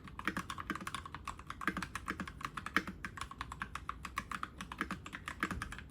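Typing on a Keychron K6 mechanical keyboard: a fast, uneven run of key clicks.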